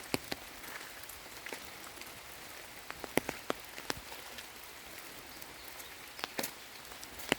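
Rain falling on vegetation: a steady hiss with irregular sharp drops and ticks, a cluster of them a few seconds in and again near the end.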